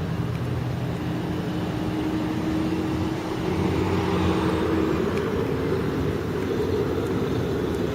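Street traffic on a wet road: vehicles passing with a steady engine hum and tyre hiss, a little louder about halfway through.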